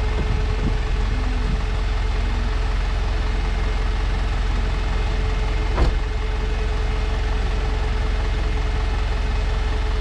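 An engine idling steadily, a low rumble with a constant hum over it. A single sharp click about six seconds in.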